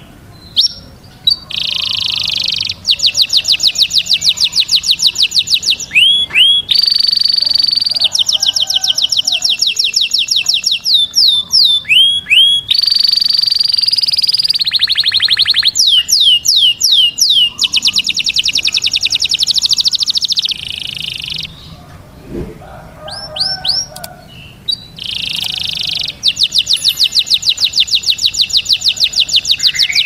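Male domestic canary singing a long song of fast trilled rolls, rapid repeated high notes and quick sweeping whistles. There is a short break of scattered chirps a little past the middle.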